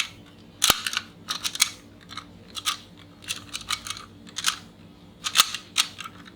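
Plastic toy trucks being handled: irregular sharp clicks and clacks of hard plastic, several a second, as the toys are picked up, turned and set down.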